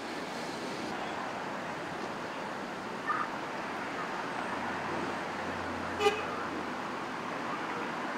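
Steady street traffic noise, with two brief sharp sounds about three and six seconds in, the second the louder.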